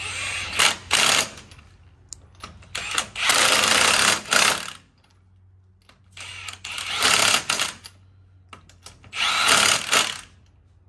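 Cordless impact wrench hammering on the lug nuts of a truck wheel, in four bursts of one to two seconds each with short pauses between.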